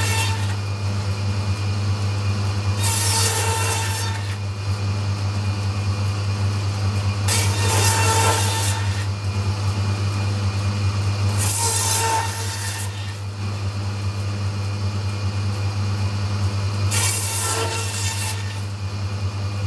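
Butcher's meat bandsaw running with a steady motor hum, its blade cutting through lamb loin and bone into chops. Each cut is a burst of about a second, four times at a few seconds' spacing, with the end of a fifth cut right at the start.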